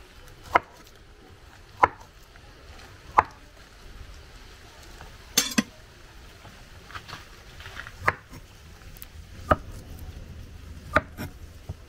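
Large kitchen knife slicing through peeled plantain and striking a wooden cutting board: a sharp knock about every second or so, one of them doubled.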